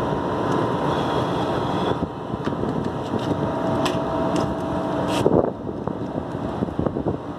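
Steady background rumble with wind on the microphone. A few light clicks come about halfway through as a screwdriver works a wire terminal on the potential relay.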